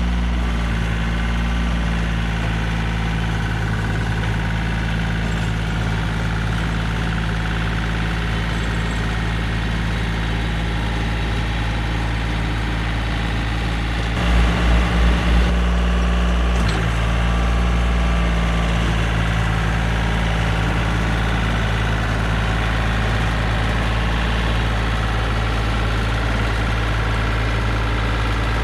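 Yanmar compact tractor's diesel engine running steadily while driving a PTO rototiller through the garden soil. About halfway through come four short low pulses, and then the engine note shifts.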